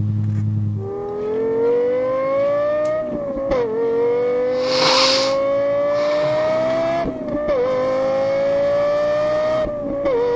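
Lexus LFA's naturally aspirated 4.8-litre V10 idling for a moment, then accelerating hard through the gears: the engine note climbs steadily and drops sharply at each of three quick upshifts. The latter part is heard from the driver's seat, with a short burst of hiss about halfway.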